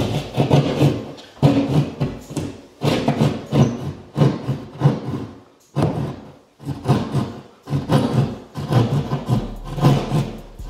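Hand drywall saw cutting through drywall in rapid back-and-forth rasping strokes, about two to three a second, with a couple of short pauses.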